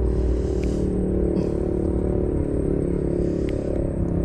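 An engine running steadily in the background, a constant motor hum without change in pitch, with a few faint clicks over it.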